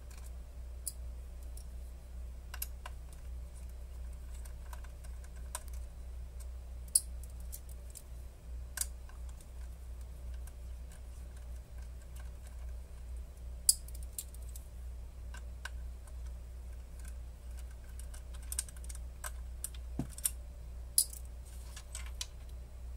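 Scattered small sharp clicks and ticks of a precision screwdriver working screws out of an opened Blackmagic Pocket 6K camera body while the housing is handled, with a few louder clicks, over a steady low hum.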